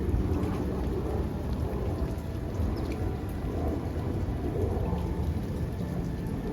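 Steady rain falling, with a constant low rumble beneath it.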